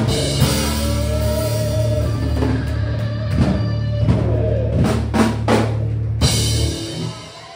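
Live rock band with electric guitar, bass and drum kit holding a long chord under drum hits and cymbal crashes. The music stops suddenly about seven seconds in.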